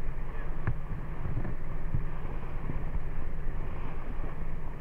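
A small cabin boat's motor running steadily under way, with wind buffeting the microphone. A few short knocks come through about one, two and three seconds in.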